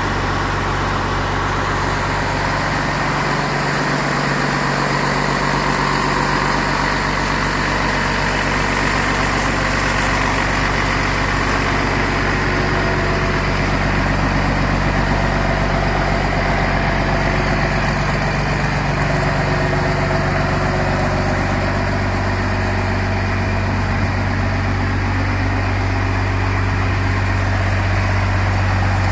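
Cummins 12-valve inline-six turbodiesel idling steadily through twin stack exhaust pipes.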